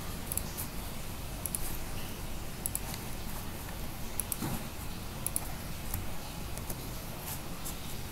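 Scattered light clicks of a computer mouse and keyboard, a few at a time, over a steady low background hum.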